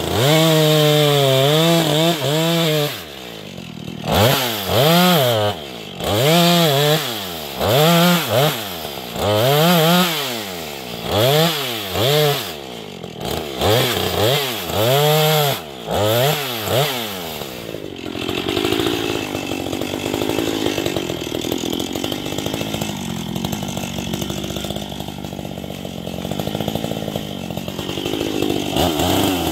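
Husqvarna 440 two-stroke chainsaw revved up and let back down in short bursts about ten times, then settling into a steady idle for the last ten seconds or so.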